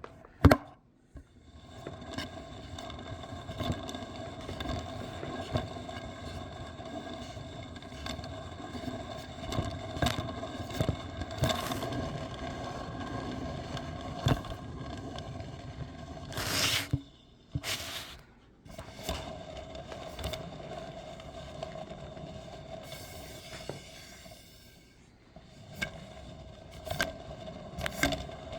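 Ceiling fan running fast: a steady whine with irregular ticks and scraping, which breaks off briefly twice.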